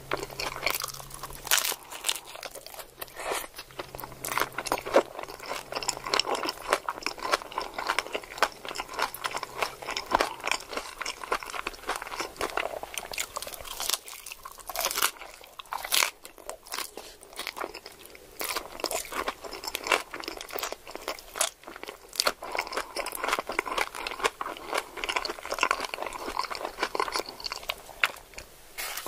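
Continuous crunching and chewing of a crunchy hard-shell taco, dense with sharp crackles of the shell breaking.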